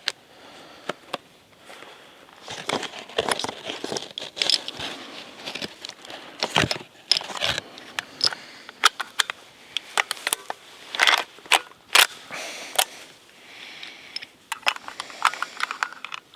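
Irregular crunching, crackling and scraping of footsteps and movement over stony ground and dry brush, with scattered sharp knocks.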